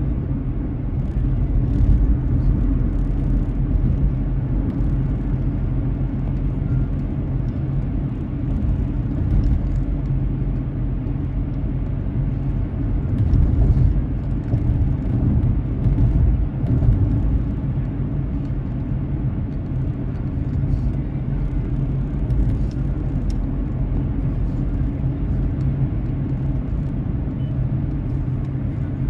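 Car driving on a wet road: a steady low rumble of tyres and engine, with faint scattered ticks throughout.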